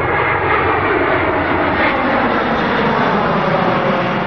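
Airbus A380's four turbofan engines passing low overhead on landing approach: a loud, steady jet roar.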